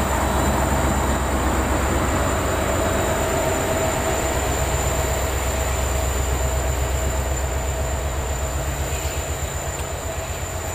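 Passenger coaches of a departing Indian Railways express rolling past at low speed, wheels and bogies running with a low rumble and a quick pulsing rhythm over the rail joints, easing off slightly towards the end.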